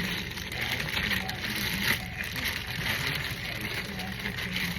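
Eating sounds: food being handled and chewed, an irregular wet crackle with one sharper sound a little under two seconds in, over a faint steady low hum.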